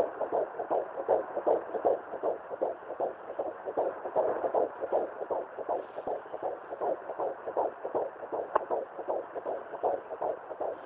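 Fetal heartbeat at 17 weeks 5 days of pregnancy, played through a handheld fetal doppler's speaker as a fast, even, whooshing pulse of about two and a half beats a second. One sharp click comes late on.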